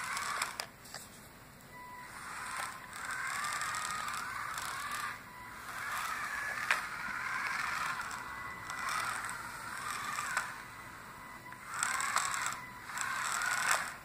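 Small DC gear motors of a two-wheeled robot car whining in stretches of a few seconds, starting and stopping, their pitch wavering as the speed changes under joystick control, with a few sharp clicks.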